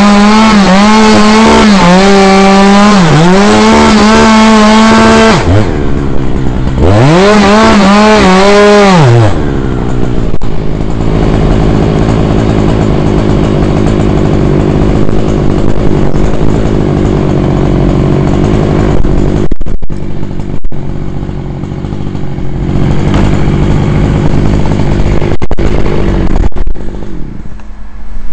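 Chainsaw at full throttle cutting through a dead horse chestnut trunk, its pitch dipping once under load before it is released. It is then revved up and let back down once. After that a lower, steady engine hum runs, with scattered knocks and scrapes.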